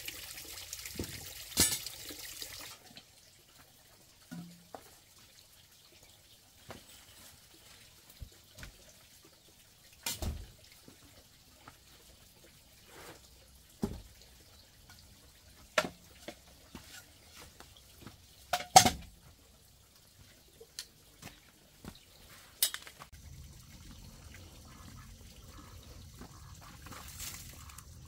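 Scattered knocks and clacks of bamboo poles being handled and fitted, about a dozen spread out with long gaps, one louder knock about two-thirds through. A steady rushing hiss sits under the first two or three seconds and comes back near the end.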